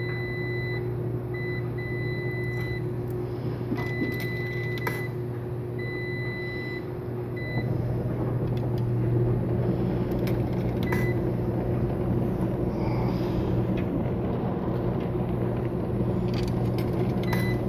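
Coin-operated clothes dryer being fed coins: sharp clicks and a string of short electronic beeps in the first seven seconds, over the steady hum of running laundry machines. The hum grows louder about seven or eight seconds in.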